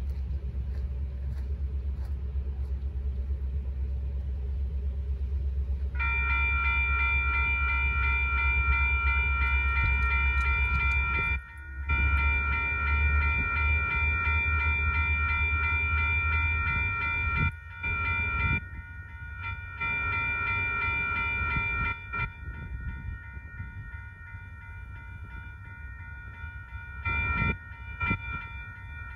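Railroad crossing bell starting up about six seconds in and ringing steadily as the crossing gates come down, warning of an approaching train. Under it, a low rumble dies away partway through.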